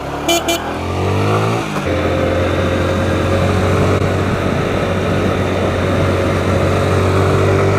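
Motorcycle engine accelerating, its pitch rising for the first two seconds or so, then running at a steady speed.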